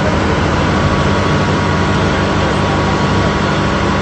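Steady rumble of vehicle engines and road traffic under a broad hiss.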